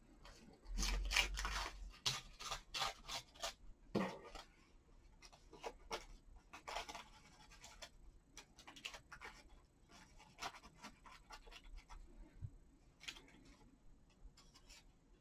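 Sheet of patterned craft paper being crumpled and handled, crinkling and rustling in short bursts, loudest about a second in, with a soft knock about four seconds in and lighter rubbing as the edges are dabbed with a small ink applicator.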